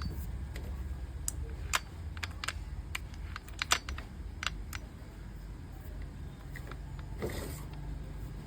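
A series of light, sharp clicks and taps, irregularly spaced and bunched in the first half, then a short scrape a little after seven seconds, over a steady low rumble; no motor is running.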